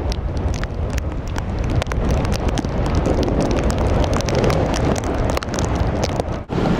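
Flood-swollen creek rushing, a dense steady roar with wind buffeting the microphone and scattered sharp clicks, broken by a brief dip near the end.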